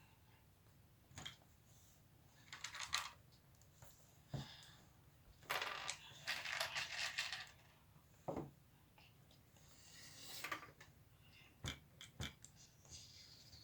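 Small plastic Lego Technic pieces clicking and rattling as they are handled. There are separate clicks and a few short rattles, the longest about six seconds in, as if someone is rummaging through a pile of parts.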